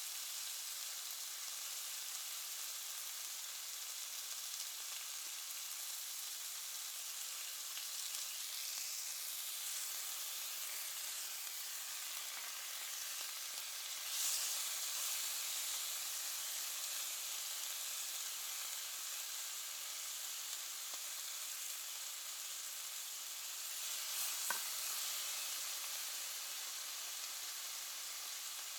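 Meat sizzling in a frying pan: a steady frying hiss that swells briefly about halfway through, with one sharp pop near the end.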